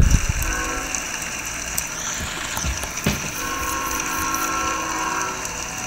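Locomotive horn sounding in the distance: a shorter blast, then a longer one about two seconds later, over a steady hiss.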